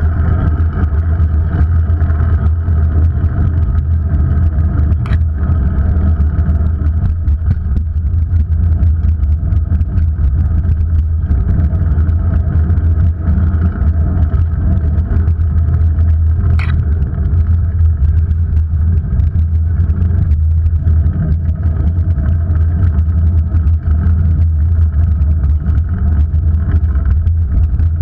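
Steady loud rumble of travel heard on a camera mounted low on a moving vehicle: road and wind noise with no let-up. A brief high squeak comes about seventeen seconds in.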